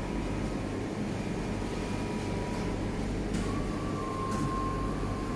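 Steady mechanical hum of running machinery with a low rumble and a thin high tone that grows louder a little past halfway, and two light clicks near the end.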